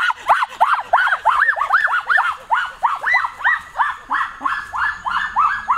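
An animal yelping rapidly and steadily, about three or four high yelps a second, each one rising and falling in pitch.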